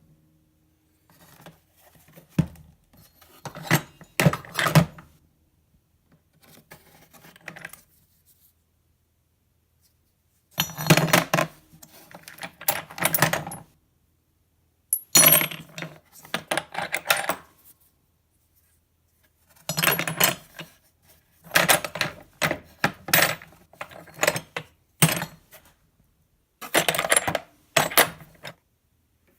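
Small metal parts clinking and clattering as they are handled, in short bursts of a few seconds with silent gaps between them.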